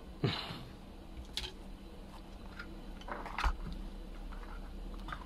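Handling noise from a circuit board being picked up and turned over: a brief scrape near the start, then scattered light clicks and taps, with the loudest sharp knock about three and a half seconds in, likely as the board is set down.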